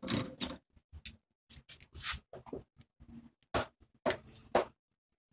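Irregular clicks, clinks and short metallic scrapes from a motorcycle coil-spring shock absorber and its parts being handled against a bench vise. The longest and loudest scrapes come about three and a half to four and a half seconds in.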